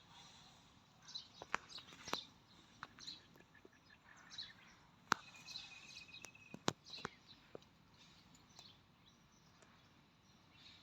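Faint birds chirping in short calls over a low background hiss, with one held thin whistle midway. A handful of sharp clicks or snaps stand out, the loudest about five and nearly seven seconds in.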